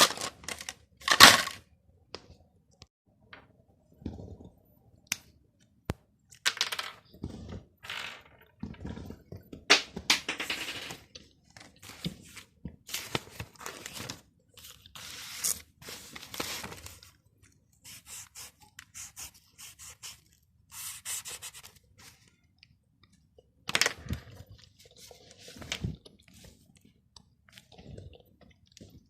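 Irregular scraping and crackling from a silicone pop-it fidget toy and a metal scouring sponge being handled and rubbed together, in short bursts with pauses between them.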